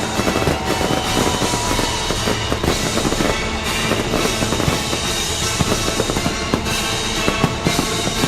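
Fireworks bursting and crackling in quick succession over loud music playing with the display.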